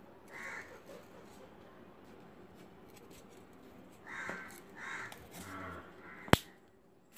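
A bird calling four times in short calls, once near the start and three in quick succession about four to six seconds in, and one sharp click a little after the last call, the loudest sound.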